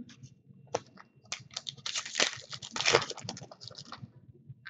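Trading cards and foil card-pack wrappers being handled: a run of crinkling and light clicks, densest in the middle.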